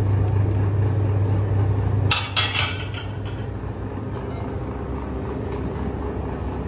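A metal ladle and a steel pot clinking against a bowl while soup is served: a short clatter of clinks about two seconds in. Until then a steady low hum runs underneath, and it cuts off suddenly just before the clinks.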